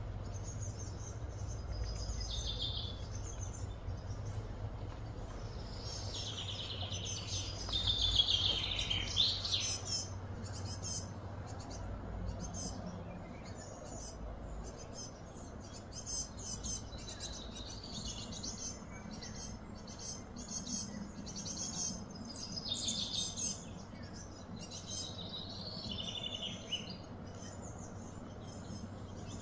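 Birds chirping and calling in short bursts and trills, busiest a few seconds in, over a low steady hum that weakens about halfway through.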